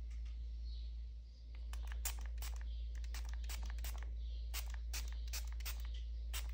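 Fine-mist pump spray bottle squeezed again and again, a quick series of short spritzes starting a little under two seconds in, over a steady low hum.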